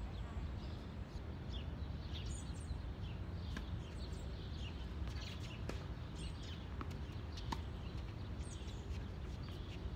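Outdoor ambience: a steady low rumble with small birds chirping throughout, and a few faint sharp clicks, about three, in the second half.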